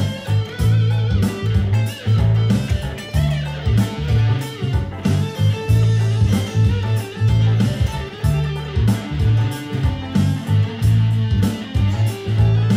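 Electric guitar playing a funk riff: a rhythmic groove of strong, repeated low notes with sharp, percussive pick attacks.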